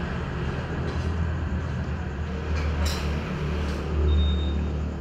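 Steady low mechanical rumble, swelling slightly about four seconds in, with a couple of faint clicks around three seconds in and a brief high squeak just after.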